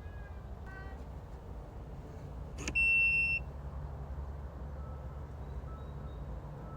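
An electronic smart door lock beeping while it pairs with its phone app: a faint short chime about a second in, then a click and one loud, high, steady beep of about half a second near the middle. A low steady rumble runs underneath.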